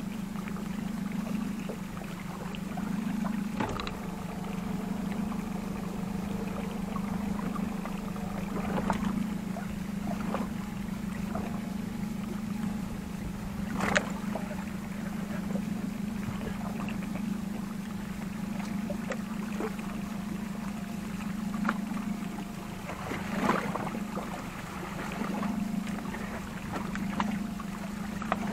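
Boat's outboard motor idling with a steady, slightly pulsing hum while a heavy rod-and-reel is cranked against a hooked fish. A few sharp knocks from the gear stand out, the loudest about halfway through.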